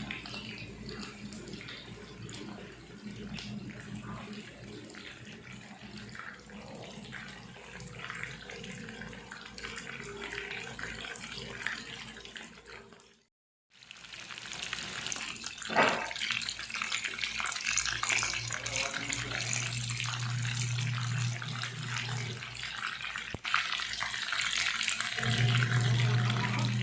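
Tap water running into a kitchen sink, as when washing, cut off briefly by an edit about halfway. A low steady hum comes in twice in the second half.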